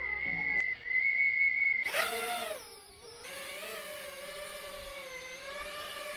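A steady high tone for about two seconds. Then a small FPV quadcopter's brushless motors spin up with a sudden burst of noise and a falling whine, and settle into a steady idle whir that wavers slightly in pitch.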